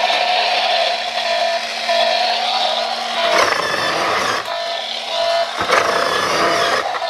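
Battery-powered toy truck switched on and running, its little speaker playing an electronic engine sound effect with a beeping tone that comes and goes.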